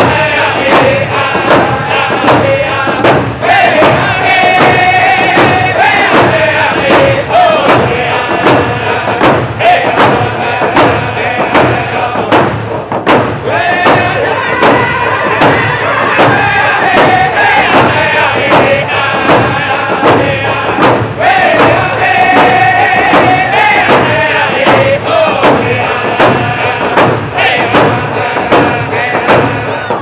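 A group of men sing a Native American round dance song in unison over a steady, even beat of hand drums.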